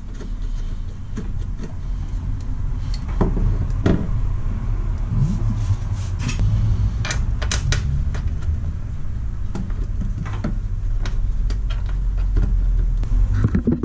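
Scattered light clicks and knocks as an air-oil separator canister is held and shifted against its metal mounting bracket, over a steady low rumble.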